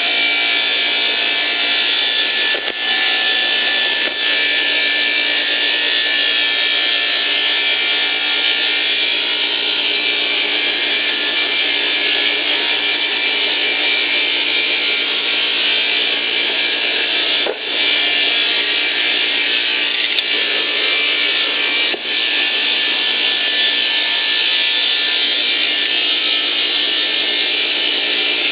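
Log-sawing machine running, its blades ripping a pole lengthwise with a steady, loud sawing noise that dips briefly a few times.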